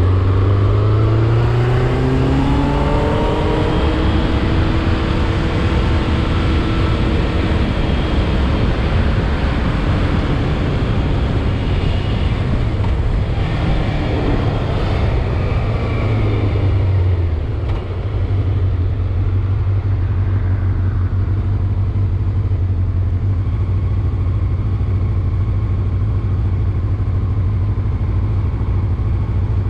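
Motorcycle engine under way: its pitch rises as it accelerates in the first few seconds, then holds steady at cruising speed over a constant rushing noise. About 18 seconds in the engine briefly drops off, then runs steady again.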